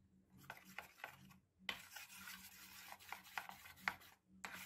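Metal spoon stirring a flour-and-water batter in a small steel bowl, faint, irregular scraping strokes with a few sharp clinks against the bowl's sides.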